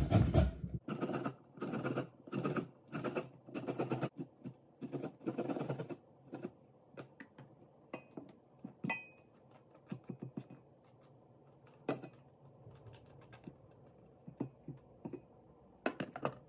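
Yellow squash being grated on a flat metal hand grater over a stainless steel pot: rasping strokes at about two a second for the first five seconds or so, then lighter scattered taps and scrapes as the grater is cleared, with a couple of knocks near the end.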